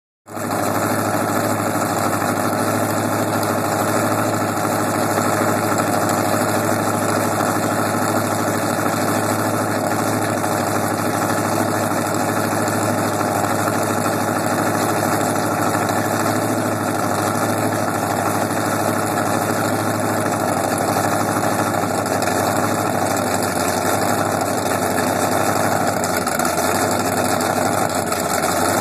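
Twin inboard engines of a performance boat with stern drives, idling steadily on the trailer, fed cooling water by a garden hose, with their thru-transom exhausts spitting water spray.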